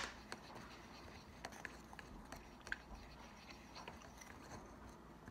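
Faint scratching with light scattered ticks: a paintbrush stirring paint in a small jar, the bristles rubbing the bottom and the handle tapping the rim.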